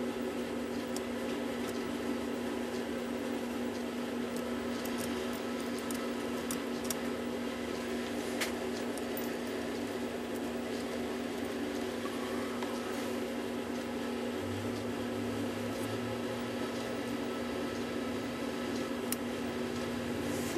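Steady machine hum from an appliance in the room, with a lower hum joining about two-thirds of the way through. A few faint clicks come from small brass clock wheels and pinions being handled and fitted between the movement's plates.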